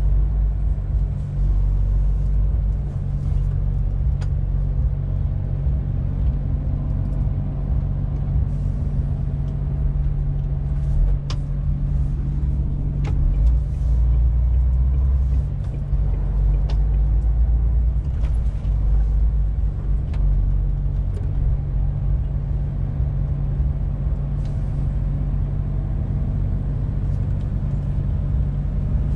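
Cab interior of a 2021 MAN TGX 18.470 truck on the move: its six-cylinder diesel runs with a steady low rumble under the road noise, with a few faint short clicks.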